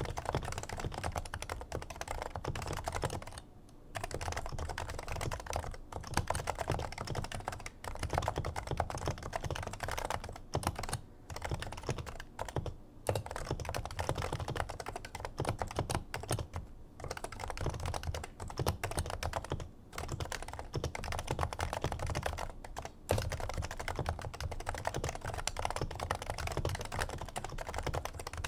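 Steady fast typing on a Topre Realforce R2 keyboard with factory-silenced 55 g electrostatic capacitive switches, whose sliders carry silencing rings. It makes a thocky keystroke sound, deep at the low end. The typing breaks off briefly a few times.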